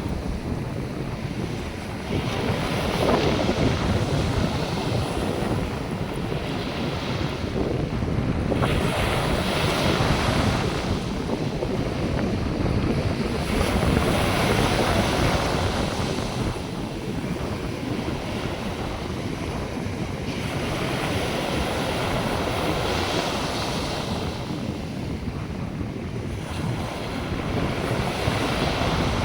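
North Sea surf breaking on a sandy beach, the wash swelling and fading every few seconds, with wind buffeting the microphone.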